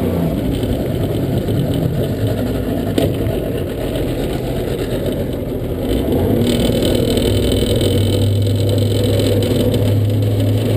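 Boat engine running steadily, muffled by a waterproof camera case. It runs louder from about six and a half seconds in.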